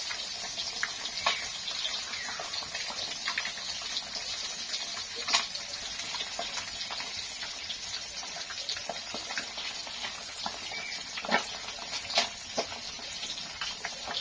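Catfish deep-frying in hot oil in a wok: a steady sizzle with frequent crackling pops, a few of them louder than the rest.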